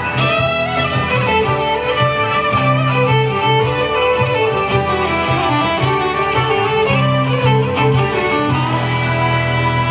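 Celtic fiddle playing an instrumental melody over band accompaniment, with sustained low bass notes underneath.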